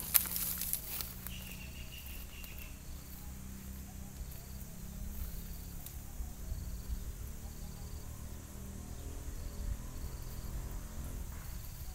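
An insect chirping: short high chirps repeat about once a second over a low steady rumble. There is brushing and rustling at the very start, and a longer high note about a second in.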